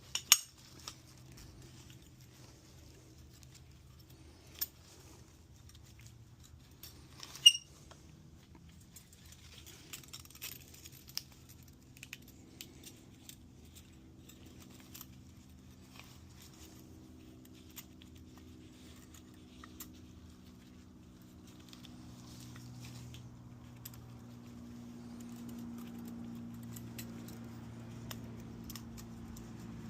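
Metal tools and engine parts clinking and tapping during a piston install: two sharp clinks, one right at the start and one about seven and a half seconds in, with scattered lighter ticks between. A low steady hum grows louder in the second half.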